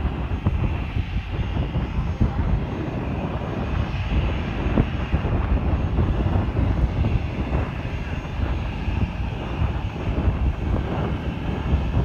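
Jet engines of an AirAsia Airbus A320-family airliner at takeoff power during its takeoff roll, a steady low rumble heard from beside the runway.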